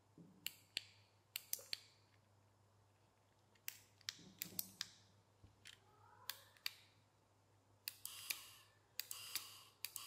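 Mechanical relays on a 4-channel relay module clicking on and off as the RF remote's buttons are pressed: a string of sharp clicks, some in quick pairs. In the last two seconds a small DC gear motor runs briefly twice with a steady whir.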